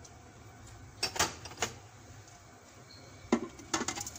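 Ingredients such as green chilli dropped into a plastic blender jar, giving short knocks and taps against the jar: a cluster about a second in and another near the end.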